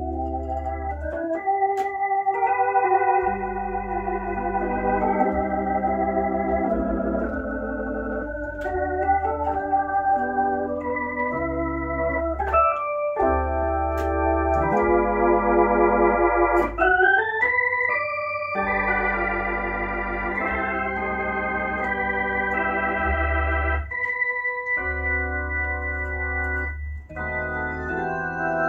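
Hammond H112 valve tonewheel organ playing held chords over deep pedal bass notes, with a quick upward glissando about two-thirds of the way through. It plays through a Leslie rotating speaker, which puts a wavering shimmer on the notes.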